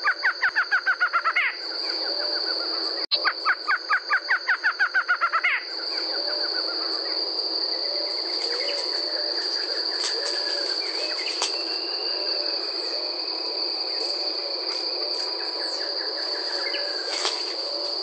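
Barred antshrike singing twice, each song a rapid run of repeated notes lasting about two and a half seconds, within the first six seconds. A steady high-pitched insect trill runs underneath throughout, with fainter bird calls after the songs.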